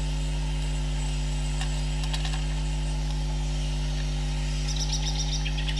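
Steady low electrical hum, with a few faint small clicks and a faint high squeak near the end as a small plastic bottle of glitter glue is squeezed and dabbed onto paper.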